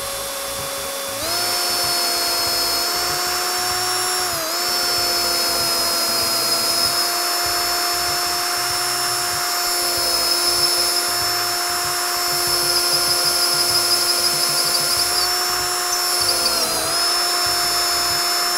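Handheld power drill running steadily, boring a deep hole down through a laminated plywood rail and, by the speaker's account, through copper. The motor whine steps up in pitch about a second in and sags briefly twice under load, near a quarter of the way in and again near the end.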